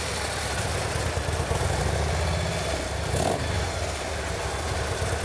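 2011 Harley-Davidson CVO Road Glide Ultra's Screamin' Eagle 110 V-twin engine idling steadily.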